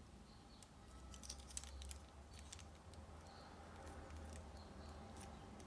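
Faint, scattered clicks and taps of a Bandai Metal Robot Spirits Gundam Barbatos Lupus Rex action figure's parts being handled and fitted, most of them in the first half, over a low steady hum.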